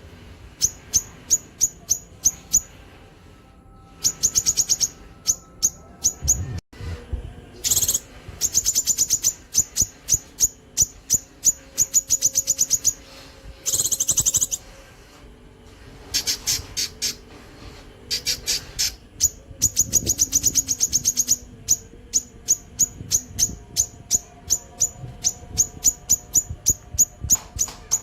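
Cucak kinoi bird singing long runs of sharp, very high notes, some spaced a few a second and some packed into fast trills, broken by short pauses: the long 'nembak' bursts that bird-keepers prize.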